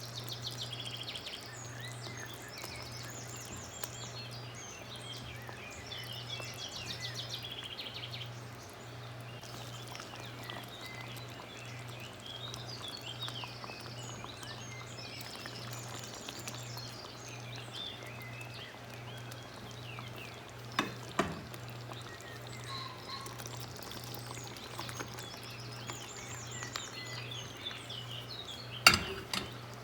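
Birds chirping in repeated short trills over a steady, evenly pulsing low hum. Two sharp knocks sound, one about two-thirds of the way in and one near the end.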